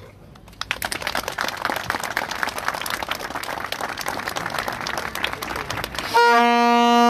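A small crowd clapping for several seconds. About six seconds in, a horn sounds one long steady note, louder than the clapping.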